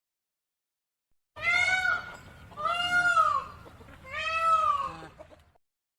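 Peafowl calling three times, each a drawn-out wailing call of about a second that rises and then falls in pitch.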